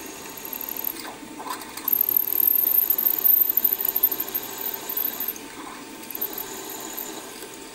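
A 5.2 mm drill bit running in a drilling machine's spindle and cutting a clearance hole through an aluminium timing pulley. The cutting gets louder, with a high whine, from about two seconds in, then eases off after about five seconds while the spindle keeps running.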